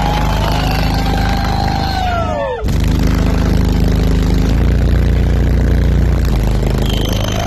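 Very loud, sustained deep bass notes from a car audio system of twelve subwoofers, stepping between pitches, with a brief cut-out about two and a half seconds in. Falling whistle-like tones sound over the bass before the cut-out. The bass pressure is cracking the car's windshield.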